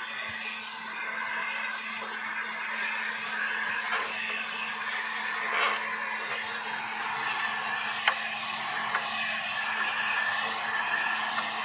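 Electric heat gun blowing steadily with a low hum while heat-shrinking ceramic window film onto a tractor's curved window; a single sharp click about eight seconds in.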